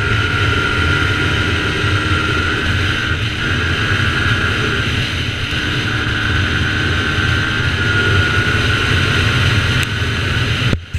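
Yamaha TT-R125L dirt bike's single-cylinder four-stroke engine running steadily under way, its pitch wavering slightly. The sound cuts off suddenly near the end.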